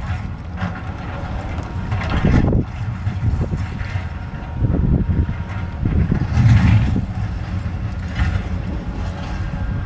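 Diesel engine of a Cat 320 excavator working under load, a steady low drone with louder bursts of noise about two, five and six and a half seconds in.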